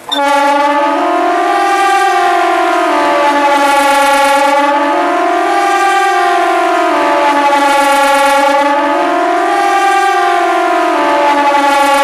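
Kockum Sonics KTG 10 electronic siren sounding the Swiss "general alarm" test signal: a loud wail that switches on abruptly and rises and falls in pitch about once every four seconds.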